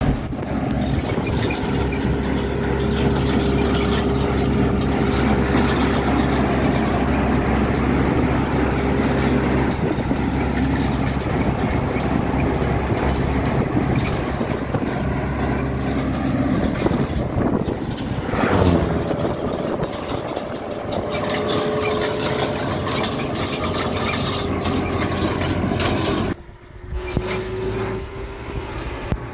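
Farm tractor's engine running steadily as it tows a trailer, heard from close behind. The sound drops away suddenly near the end.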